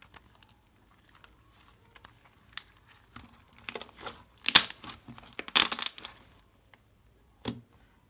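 Thick light-blue slime being stretched, folded and squeezed by hand, making short squishing noises. It is nearly quiet at first, then gives a run of short bursts from about halfway through, the loudest near the middle.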